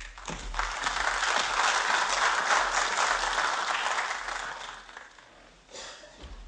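Audience applauding, swelling over the first second, strongest a couple of seconds in, then dying away about five seconds in.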